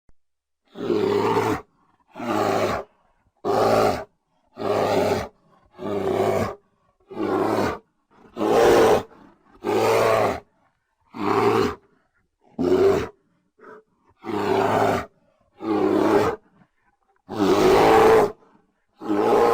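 Bear sound effect: a bear calling over and over, about fourteen separate calls of roughly a second each, one every second or so with short silences between.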